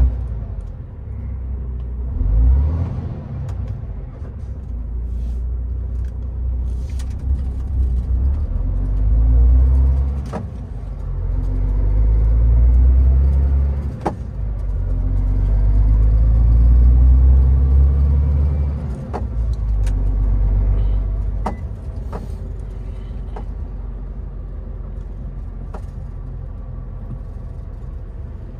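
A road vehicle's engine pulling away and speeding up in several runs, its pitch rising each time, with a few sharp clicks between them. It settles to a steady low running sound after about twenty seconds.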